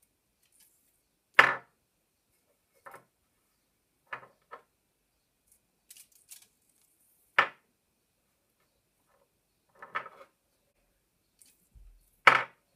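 Short sharp clicks and knocks of small neodymium magnets being handled and dropped through upright aluminium foil rolls onto a wooden bench, with three louder knocks about a second and a half in, about seven seconds in and near the end.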